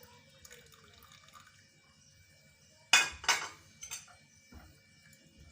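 Glass clinking: two sharp clinks in quick succession about three seconds in, followed by a couple of fainter knocks.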